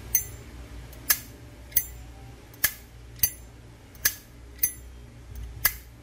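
Brass Zippo Armor lighter's lid flicked open and snapped shut over and over: eight sharp metallic clicks, roughly one every three-quarters of a second. The thick Armor case gives a clear click that rings less than a standard Zippo's.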